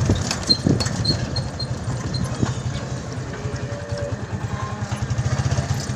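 The motorcycle engine of a sidecar tricycle runs at low speed with a rapid, even beat, heard from inside the sidecar.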